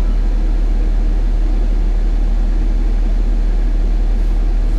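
A four-wheel-drive SUV's engine running steadily: a constant low rumble with no distinct events.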